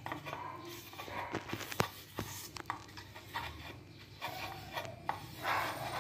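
Fingers rubbing ghee over an aluminium idli plate: soft rubbing and scraping with scattered light clicks.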